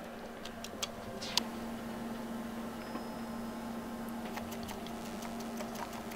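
Light clicks and taps of canned mushroom slices and black olives being dropped by hand onto a cheese pizza on a wooden board, with a sharper click about a second and a half in. A steady low hum runs underneath.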